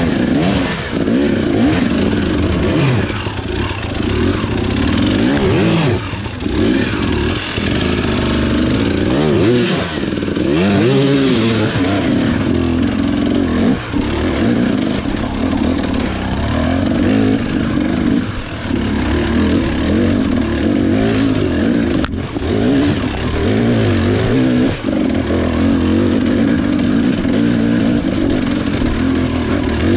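KTM XC 300 two-stroke dirt bike engine revving up and down over and over in short bursts of throttle as it climbs a rocky creek bed at low speed. A single sharp knock about two-thirds of the way through.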